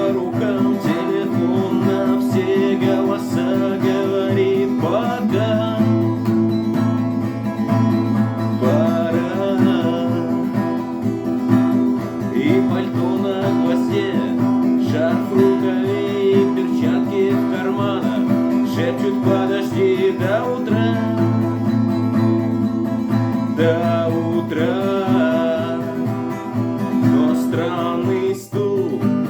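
Music: acoustic guitar playing with a singing voice.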